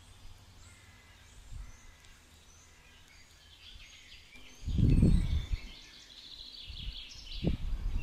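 Small songbirds chirping and calling, many short calls overlapping, busiest from about three seconds in. A loud low rumble comes about halfway through, and a shorter one near the end.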